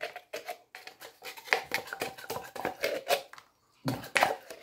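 Light, irregular clicks and taps from an opened tin of condensed milk being handled and shaken over a plastic mixing bowl while the milk drains in.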